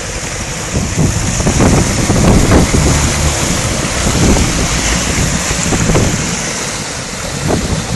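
Diesel Land Rover 4x4 driving through a deep flooded ford, water surging and splashing around it over its engine noise, with wind buffeting the microphone.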